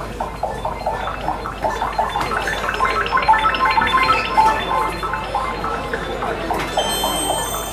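Live ambient music: a quick, continuous flurry of short pitched plinking notes, with steady high ringing tones coming in near the end.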